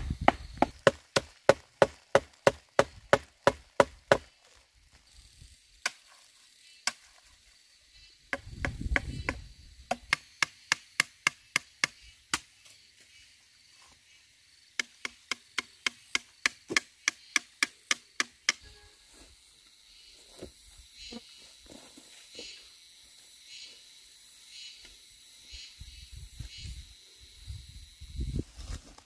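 Knife chopping fast on a cutting board, about five strokes a second, in three runs of a few seconds each with pauses between. Near the end it becomes lighter, scattered taps.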